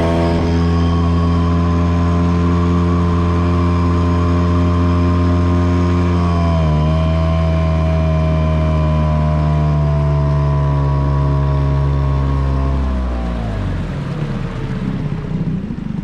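Small Yamaha 5 hp outboard motor running hard at full throttle, its pitch dipping a little about six and a half seconds in. Near the end the throttle comes off and the engine winds down to a lower, uneven running.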